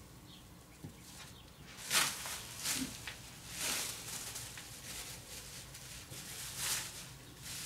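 Plastic masking film rustling as it is smoothed and taped against a motorhome's side, in about four short bursts.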